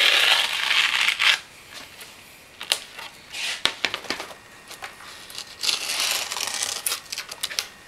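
Razor blade slicing through skateboard grip tape along the deck's edge, a gritty rasp in bursts, the longest in the first second and a half. Lighter scratches and clicks follow as the cut-off grip tape is handled.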